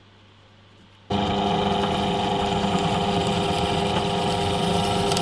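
Bench drill press running steadily as its twist bit bores into a wooden block, with a steady motor hum and whine; it comes in abruptly about a second in after faint room tone.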